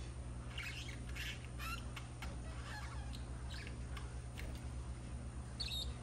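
Budgerigars chattering: a string of short, squawky chirps and warbles, with a sharper, higher call near the end, over a steady low hum.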